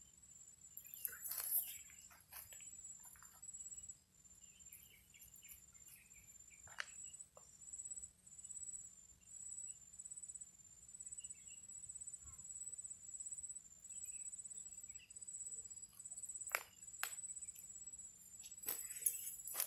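Insect chirping: a thin, very high-pitched trill repeating in short, even pulses. A few faint clicks and rustles are heard around it, mostly near the end.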